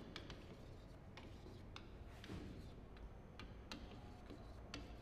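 Chalk writing on a chalkboard: faint, irregular clicks as the chalk strikes the board, with a short scratchy stroke a little over two seconds in.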